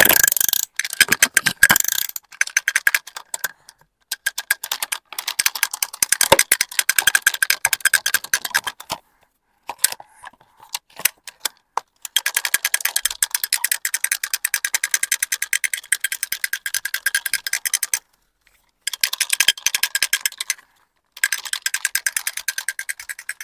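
Rapid clicking rattle of a small plastic toy's gear or ratchet mechanism, running in stretches of a few seconds with short pauses between.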